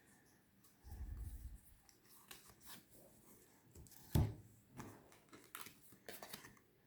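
Faint handling of semi-gloss oracle cards: soft rubs and light ticks as the cards are handled and laid out, with a low bump about a second in and one sharper tap about four seconds in.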